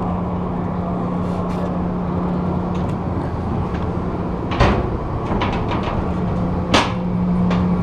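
Steady hum of engine-room machinery with a constant low tone, and two sharp knocks, the first about halfway through and the second near the end.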